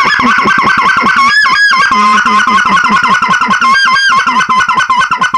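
Short-reed goose call blown to imitate a white-fronted goose: a loud, fast, unbroken run of clucks, several a second, each note breaking from a high pitch down to a lower one. The clucks and yodel breaks come from one and the same base sound, varied only by how sharply it is cut off in the mouth, so there are no pauses between them.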